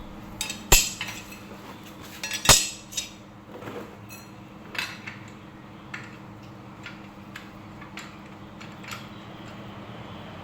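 Metal parts and tools being handled, with scattered clinks and knocks, the two loudest about a second and two and a half seconds in, over a faint steady hum.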